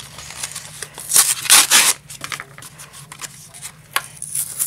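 Foil trading-card booster pack wrapper crinkling and tearing as it is opened by hand, in irregular rustles with short crackles. The loudest rustle comes about a second and a half in.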